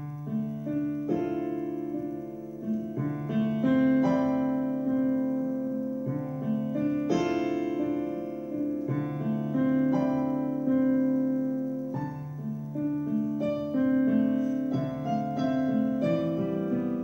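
Slow solo piano music, chords struck and left to ring.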